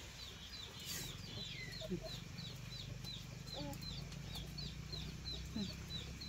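Chickens: a steady run of short, high peeping calls, about four a second, typical of chicks, with a few lower clucks now and then.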